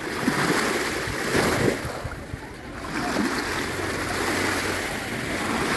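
Sea surf washing onto a sandy beach, the noise swelling and easing as the waves come in.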